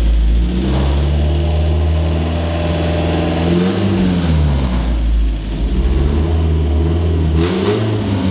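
Mazda Miata 1.8 L BP four-cylinder engine in a 1967 Datsun roadster, running steadily and revved briefly twice, about a third of the way in and again near the end.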